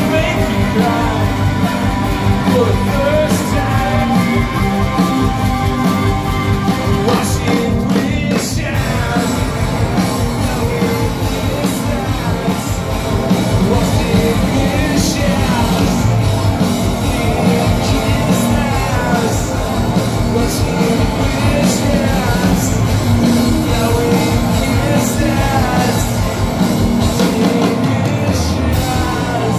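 Live rock band playing loud, with a lead vocalist singing over electric guitars and drums, heard from the audience through the venue's PA.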